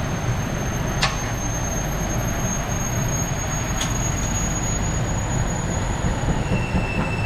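Workshop background noise: a steady low hum under a thin, high-pitched whine, with two sharp clicks, about one second and four seconds in.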